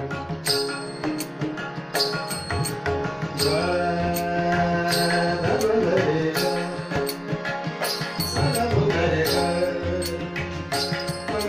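Harmonium holding chords while tabla drums play a steady rhythm of sharp, ringing strokes, in the accompaniment of a Hindu devotional bhajan.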